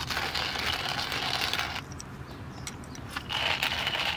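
Hand coffee mill grinding beans, a dense crunching. It pauses a little under two seconds in, gives a few sharp clicks, and starts grinding again about three seconds in.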